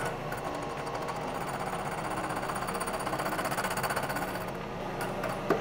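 Milling machine taking a very light skim cut with a hole-saw-type cutter, mitering the end of a 4130 chromoly steel bicycle top tube at a 2-degree angle: a steady cutting noise with a fast, even ripple. The high part of the sound thins out about four and a half seconds in.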